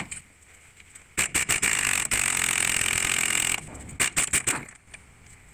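Pneumatic impact wrench hammering on a Subaru's 32 mm front axle nut to break it loose: one continuous burst of about two and a half seconds starting about a second in, then a few short blips of the trigger near the end.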